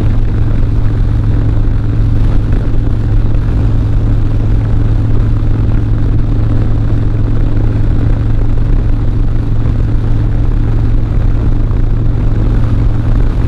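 Harley-Davidson Dyna's V-twin engine running at a steady, even pitch while the motorcycle is ridden along the road.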